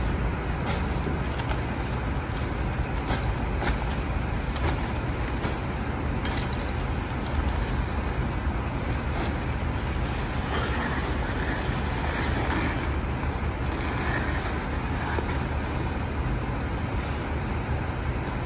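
Diesel engine of a rear-loading garbage truck running steadily, with scattered thuds and rustles of plastic trash bags thrown into the hopper.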